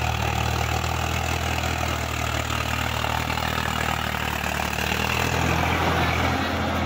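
Swaraj 855 FE tractor's three-cylinder diesel engine running steadily under load while it pulls a rotary tiller through the soil.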